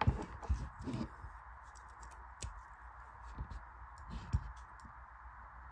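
Scattered light clicks and taps of a diecast toy excavator being handled and turned, over a steady background hiss.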